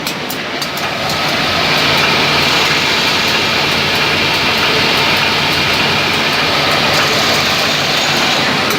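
Hydraulically driven sanding machine running: a steady whirring, rushing noise with a faint whine, louder from about a second in until near the end, with light regular ticking at the start.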